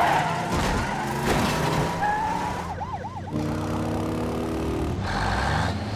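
Emergency-vehicle siren yelping, with quick up-and-down wails about three seconds in, over continuous vehicle engine and traffic noise in a chase sound mix.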